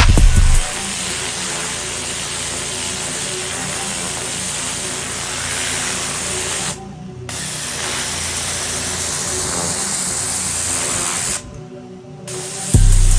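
Pressure washer spraying water in a steady hiss over the faint hum of its engine, the spray cutting out briefly twice (trigger released) while the engine keeps running. Background music at the start and again near the end.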